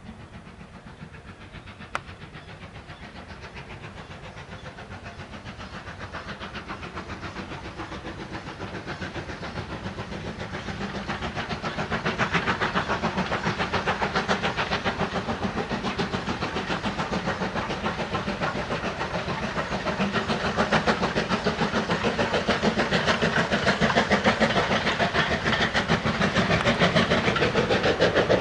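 Steam locomotive working hard with a fast, even exhaust beat as it hauls its coaches, growing steadily louder as it draws nearer.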